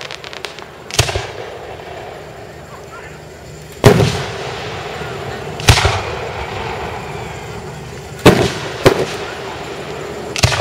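Aerial firework shells bursting: six loud booms, a second or more apart, each trailing off in a fading echo, two of them close together about eight seconds in.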